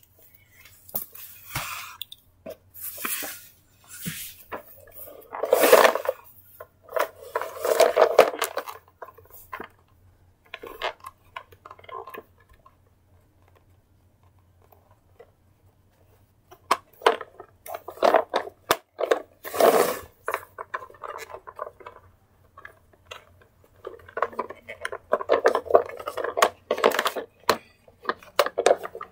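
Hard plastic toy car being handled: irregular clacks, knocks and rustling as it is moved about and a plush toy is pushed into it, with a quiet spell about halfway through.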